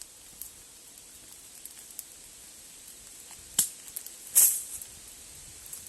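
Campfire crackling: a steady hiss with scattered sharp pops, the two loudest a little past halfway, the second a short hissing burst.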